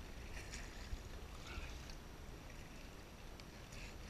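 Kayak paddle strokes in calm water: the blade dips and splashes a few times, and water drips off it, over a steady low wind rumble on the microphone.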